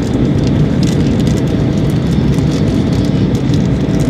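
Steady cabin noise of a jet airliner in flight: a low, even roar of engines and airflow heard from inside the cabin, with a faint steady whine over it.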